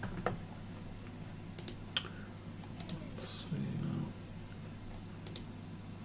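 A few sparse, sharp clicks of computer keyboard keys, spread out rather than fast typing, over a faint steady low hum, with a brief low murmur about halfway through.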